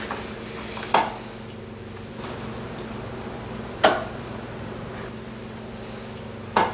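Three sharp clicks of a wall light switch being flipped, about three seconds apart, over a steady low electrical hum.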